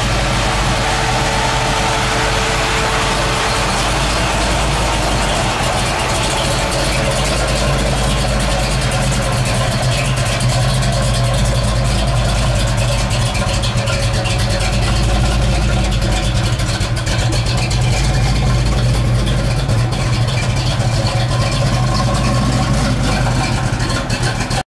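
A 1968 Chevelle's big-block 396 V8 idling steadily, with a deep, even exhaust rumble; the sound cuts off suddenly right at the end.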